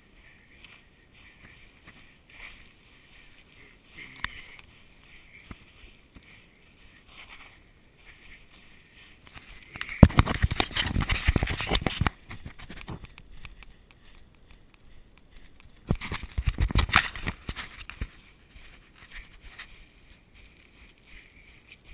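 Running footsteps crunching and sliding down loose volcanic scree: faint steps at first, then two loud stretches of rapid crunching and scraping, each about two seconds long, about ten and sixteen seconds in.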